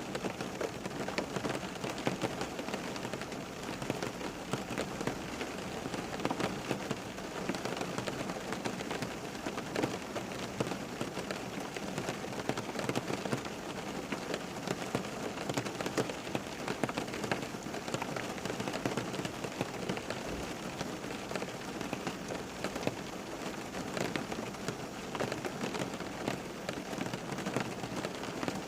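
Steady rain falling, with many separate drops striking a surface close by.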